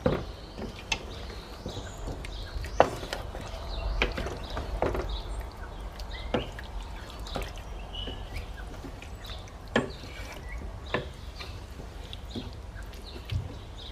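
Wooden spatula stirring a thick chicken curry masala in a stainless steel pot: wet stirring with irregular knocks and scrapes of the spatula against the pot every second or two.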